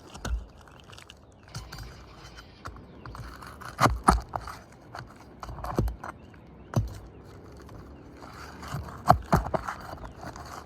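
Irregular knocks and thuds with scraping and rustling in between, from hands-on work on roof shingles; the loudest knocks fall about four seconds in and again near nine seconds.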